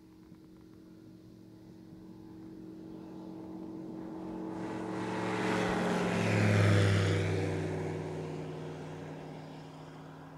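Evektor Harmony light sport aircraft's Rotax engine and propeller at takeoff power, passing low by: the drone swells to its loudest a little past halfway, drops in pitch as the aircraft goes by, then fades away.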